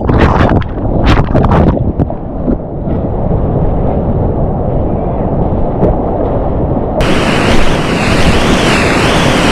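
Loud rush of whitewater rapids around a kayak, with sharp splashes of water in the first two seconds and wind buffeting the microphone. About seven seconds in, the roar of the rapid turns suddenly brighter and hissier.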